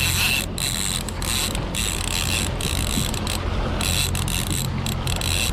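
Fishing reel running in short repeated stretches with a high mechanical whine, over a steady low hum of the boat's engine.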